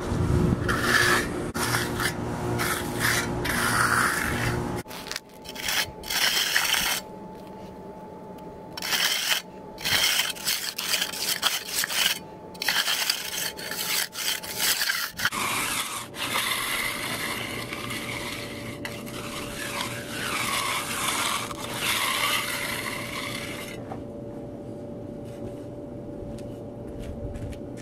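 Hand concrete finishing tools, a steel trowel and an edger, scraping and rubbing over wet concrete in repeated strokes. The strokes are continuous at first, then come in separate passes, and fade out near the end.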